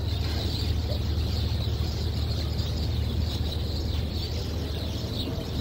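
Mobility scooter's electric drive motor running steadily as it rolls along, a low even hum.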